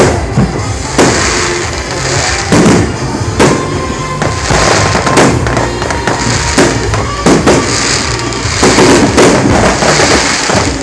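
Fireworks display: aerial shells bursting one after another, a sharp bang about every second, over a continuous crackling hiss.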